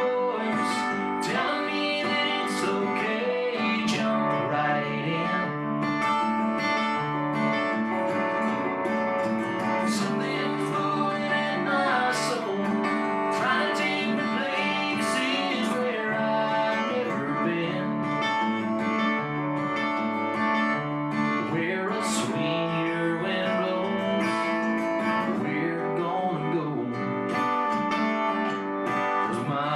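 Live 90s-style country song played on strummed acoustic guitar, with a singing voice over it.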